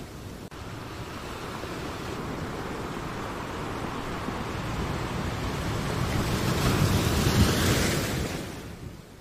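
Rushing noise with a low rumble that swells slowly, is loudest about seven to eight seconds in, then fades away near the end.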